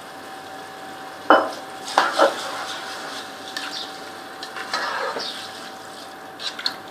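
A spoon stirring rice in a cooking pot, knocking sharply against the pot a few times about one and two seconds in, with a scrape about five seconds in.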